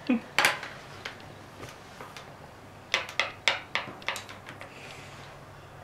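Pencil tapping on a paper worksheet on a desk: one sharp tap just after the start, then a quick run of about six taps about three seconds in.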